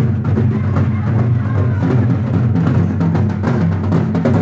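Nagara kettle drums beating a steady dance rhythm, loud and continuous.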